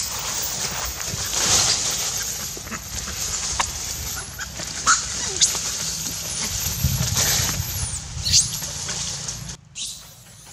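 Macaque monkeys squealing and screeching in high-pitched, sliding cries, with the sharpest cries about five, five and a half and eight and a half seconds in. The sound drops away suddenly near the end.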